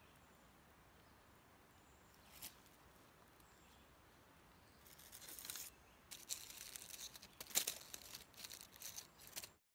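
Dry leaf litter rustling and crinkling in a run of short, irregular bursts starting about five seconds in, after one faint click.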